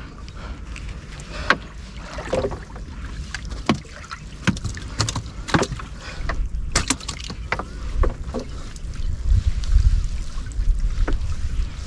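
Gill net being hauled in from the water: irregular splashes and knocks, with a low wind rumble on the microphone that grows louder in the second half.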